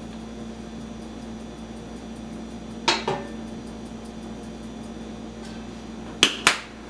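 Two sharp plastic clicks near the end as the lid of a spice shaker jar is snapped shut, with a couple of softer knocks about three seconds in from the jar being shaken over a metal pot, over a steady low kitchen hum.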